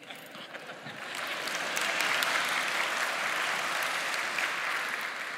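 Congregation applauding, swelling over the first second or two, holding steady, then tapering off near the end.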